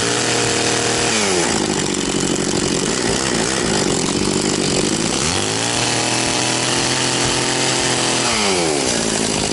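Echo CS-670 two-stroke chainsaw running and being revved. It is held at high revs, drops back to idle about a second in, is revved up again at about five and a half seconds and held for about three seconds, then falls back to idle. The owner thinks the high-speed carburettor setting may need a little tuning.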